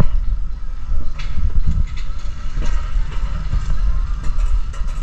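Mountain coaster cart running fast along its steel rails: a steady low rumble with a few short clacks.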